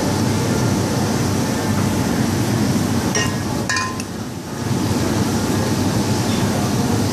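Steady roar of a commercial kitchen's extractor hood and gas ranges running. A few bright metallic clinks of utensils or pans come about three to four seconds in.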